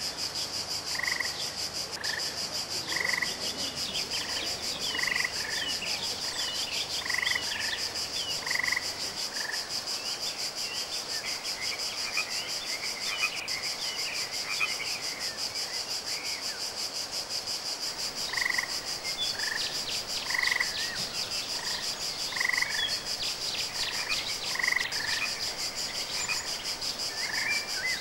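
Pond frogs calling, a short repeated note about once a second, over a steady high-pitched trill. Quick chirps fill the middle stretch, while the repeated calls pause there.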